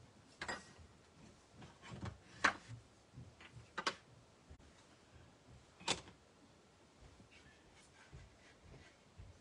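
Light clicks and knocks of craft supplies, among them a plastic ink pad, being picked up, slid and set down on a desk, about five sharp ones with the loudest about two and a half and six seconds in.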